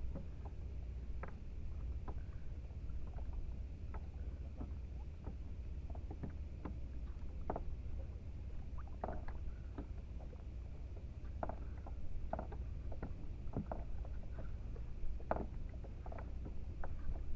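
Kayak on the water: a steady low rumble with small, irregular knocks and splashes from the hull and gear.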